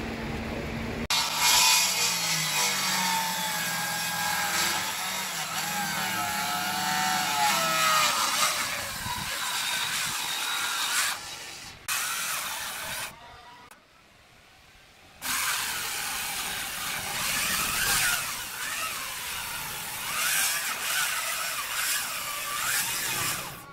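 Makita handheld circular saw cutting through a thick wooden slab, its blade whine wavering up and down in pitch as it works through the wood. The sound breaks off a few times and is nearly gone for about two seconds in the middle.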